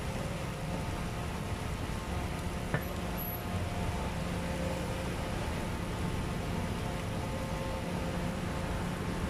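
Steady low rumble and hiss of street background noise, with one sharp click nearly three seconds in.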